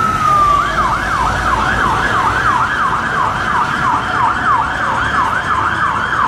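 Ambulance siren switching from a slow wail, falling in pitch, to a fast yelp about half a second in, sweeping up and down about three times a second.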